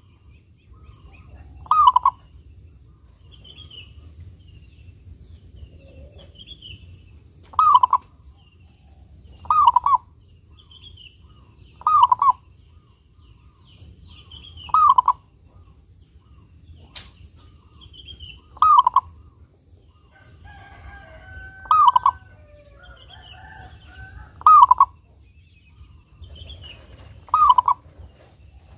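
Zebra dove (perkutut) cooing: about nine short, clear calls repeated every two to four seconds. Faint high chirps of small birds sound between the calls.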